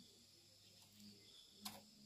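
Near silence with a faint steady high-pitched background, broken by one short tap near the end.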